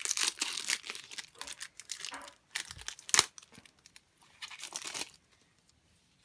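Trading-card pack wrapper being torn open and crinkled by hand, with a sharp snap about three seconds in and a last bout of crinkling before it goes quiet.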